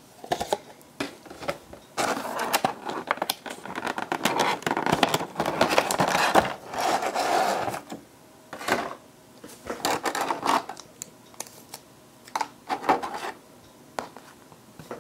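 Clear plastic packaging crinkling and scraping as a diecast model airliner is worked out of its plastic tray, with a stretch of dense rustling from about two to eight seconds in. After that come scattered clicks and light knocks as the model is handled and set down on a desk.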